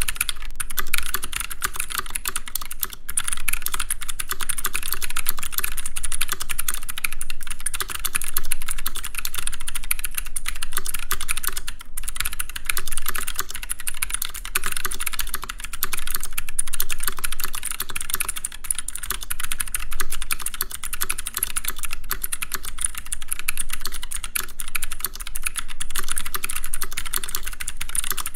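Fast, continuous typing on a mechanical keyboard: a dense, unbroken clatter of keystrokes with little bass.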